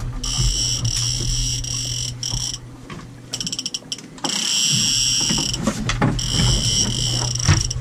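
Fishing reel's drag buzzing as a big fish pulls line off against it. It buzzes in three long stretches, with a run of slower separate clicks from the drag in the middle.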